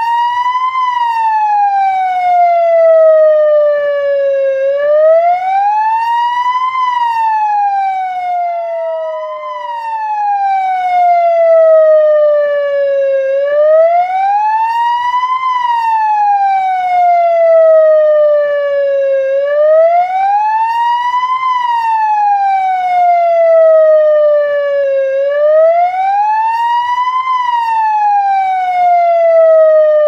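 Police car siren in wail mode: a tone that rises over about two seconds and falls over about four, repeating steadily about every six seconds. Once, near the middle, a new rise starts before the previous fall has ended.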